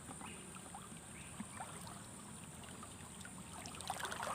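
Faint water trickling and small splashes in a shallow stream, a little busier near the end, over a steady high-pitched whine.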